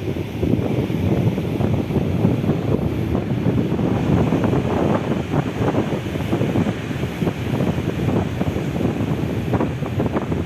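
Strong wind buffeting the microphone: a loud, rumbling rush that flutters rapidly with the gusts.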